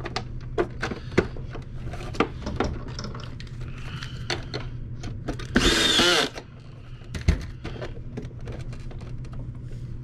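Sharp clicks and knocks of plastic vacuum housing parts being handled and fitted, with a power screwdriver running briefly about six seconds in to drive a screw.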